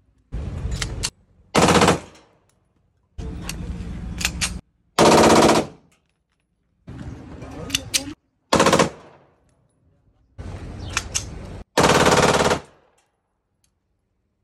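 Replica automatic pistol firing on full auto: four pairs of rapid bursts a few seconds apart, in each pair a quieter burst followed a moment later by a louder one.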